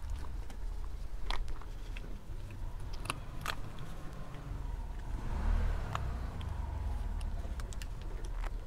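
Faint low steady rumble with a few sharp light clicks and a slight swell about halfway through, while granular enzyme powder is poured from a plastic bag into a concrete septic tank.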